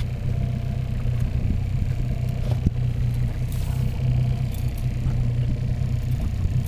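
Boat's outboard motor running steadily, a continuous low rumble.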